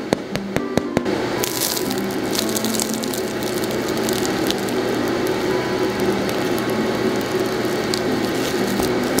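Knife sawing through the crisp crust of a salt bread roll, a quick series of sharp crunching clicks, then the roll being torn apart by hand, a denser, steady crackle and rustle of crust and soft crumb from about a second and a half in.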